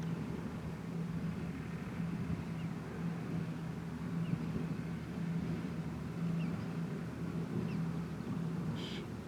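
Wind buffeting the microphone with a steady low rumble, under a faint low hum that fades in and out. A few faint short high chirps come through, with a brief louder one near the end.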